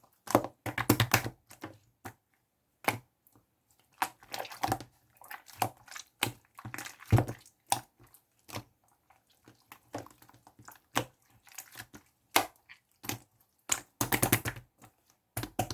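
Clear slime being squeezed and pressed by hand, making irregular clusters of crisp clicks and small pops with short silent gaps between them.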